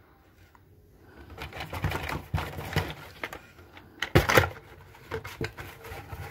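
Hot Wheels cars in plastic blister packs being handled and pulled from a cardboard case: irregular clicks, knocks and rustles of plastic and card, loudest about four seconds in.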